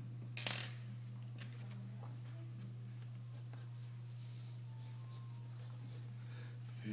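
Pencil sketching on paper: faint scratchy strokes over a steady low hum, with one sharp tap about half a second in.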